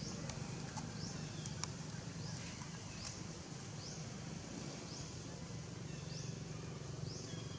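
Outdoor ambience: a short, high, rising chirp repeats about once a second over a steady low hum, with a few faint clicks.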